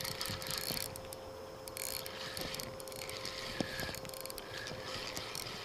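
Spinning reel being cranked to retrieve line: the reel's gears whir and tick in several spells with short pauses between them.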